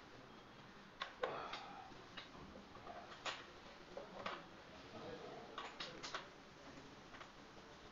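Irregular light clicks and taps of hand work on wiring at a fire alarm control panel's terminals, about ten small knocks spread over several seconds.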